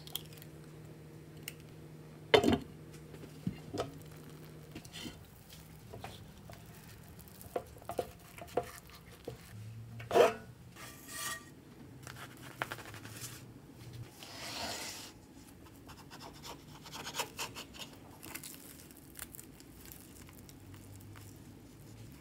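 Kitchen handling sounds from making a cheese-crusted egg toast in a nonstick pan: an egg cracked at the start, scattered sharp knocks of utensils and pan, and scraping as the crisp toast is handled and cut on a wooden board, over a low steady hum.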